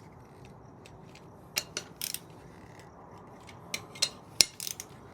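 Torque wrench and socket tightening the rear wheel's sprocket-hub nuts to 24 N·m: sharp metallic clicks in two short clusters, about a second and a half in and again around four seconds in.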